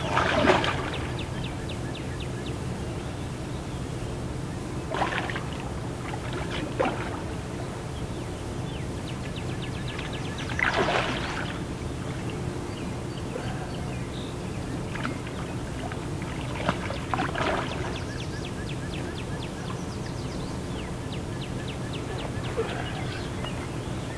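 A hooked carp thrashing and splashing at the surface close to the bank, in several separate splashes, the loudest about half a second in and again around eleven seconds. Between splashes come runs of faint rapid clicking.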